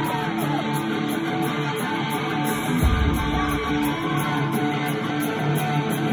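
Live pop-punk band playing loud, electric guitars strummed over bass and drums, heard from far back in a hall through a phone microphone, with a heavy low hit about three seconds in.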